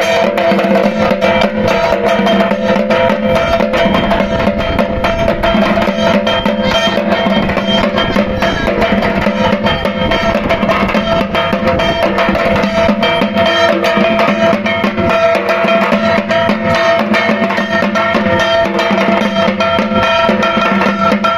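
Dhak, the large wooden barrel drums of Bengal, beaten with thin bamboo sticks in a fast, dense rhythm, with a kashi (small bell-metal gong) struck along with them; its steady metallic ringing runs over the drumming.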